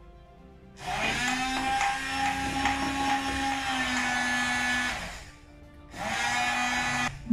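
Hand-held electric immersion blender running in a glass jar, mixing flaxseed oil and quark: one run of about four seconds, a pause, then a second run of about a second.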